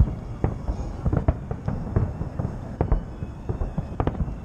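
Fireworks bursting: a rapid, irregular series of sharp bangs and cracks overlapping one another, thickest at the start and again near the end.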